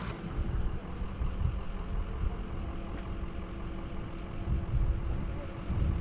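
Road and engine noise inside a moving car's cabin: a steady rumble with a faint constant hum.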